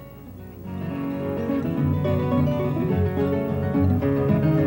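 Background music of plucked guitar, swelling in over about the first second and then playing steadily.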